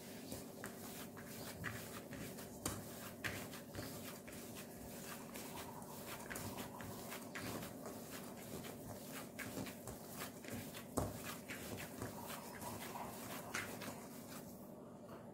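Hand kneading and mashing soft chhena in a steel bowl: faint, irregular soft clicks, squishes and rubs of palm and knuckles on the curd and the bowl's side, over a low steady hum.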